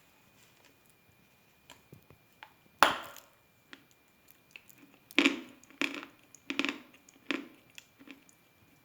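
A person biting into a lump of Khrapovsky chalk, with one sharp crunch a little under three seconds in. It is followed by four crunchy chews, about one every 0.7 seconds.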